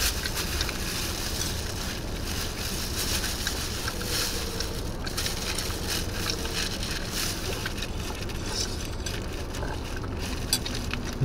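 Boston terrier eagerly eating soaked kibble from a bowl: wet chewing, licking and many small clicks against the bowl, over a steady low rumble inside the car.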